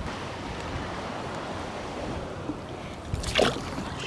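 Shallow bay water lapping and sloshing, with a low rumble of wind on the microphone and a brief louder burst about three seconds in.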